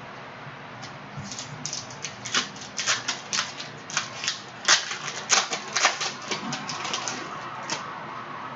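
Pack of Panini Prizm basketball cards being opened and handled: a quick, irregular run of sharp crackles and clicks from the wrapper and the cards.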